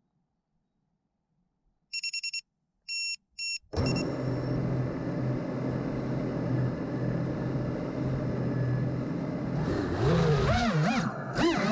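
A few short electronic beeps, then the brushless motors and 5-inch propellers of an FPV quadcopter spin up about four seconds in and whine steadily at idle. Near the end the pitch swoops up and down as the throttle is worked.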